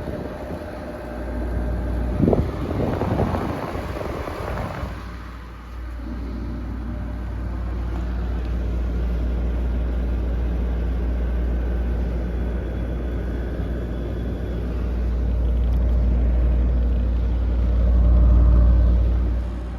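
A Friedrich CP series window air conditioner running, with a steady low hum from the compressor and fan. A click about two seconds in is followed by a few seconds of rushing air noise, and after that the running sound stays even.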